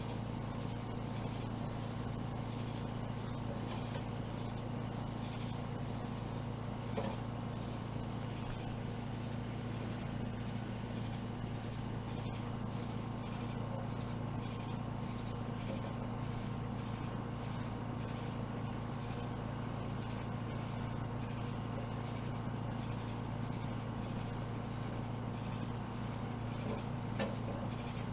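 Outdoor ambience: a steady low hum with insects chirping faintly in a quick, even rhythm.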